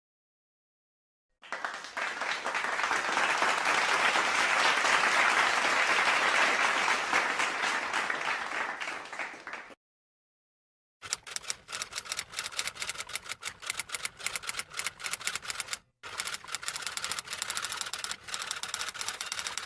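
Crowd applause swelling and then fading away over about eight seconds. After a short pause comes rapid, irregular typing clicks, as from a typewriter, running on with one brief break.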